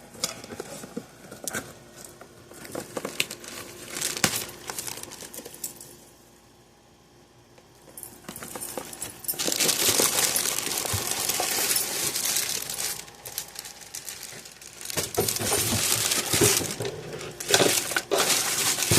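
Packaging being handled and unwrapped: scattered clicks and rustles, a short lull, then several seconds of steady crinkling from about nine seconds in.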